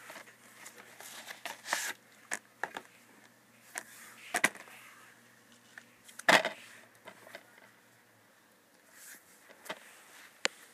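Plastic DVD case handled and turned over in the hand: scattered clicks and short rustles, the loudest about six seconds in.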